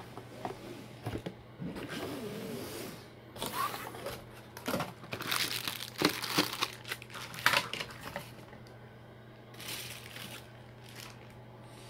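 Clear plastic packaging bag crinkling as it is handled, in irregular bursts that are densest in the middle.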